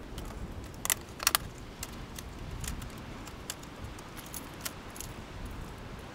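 Fishing lures being unpacked from plastic blister packs, with sharp plastic clicks and the light rattle of lures and hooks. Two loud clicks come about a second in, and fainter ones follow irregularly.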